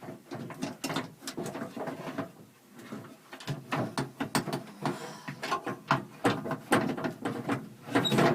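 Irregular clicks, knocks and rattles of a metal bracket and outside door handle being lifted, pushed and worked free inside a 2004 Honda Odyssey's sliding door, some in quick clusters.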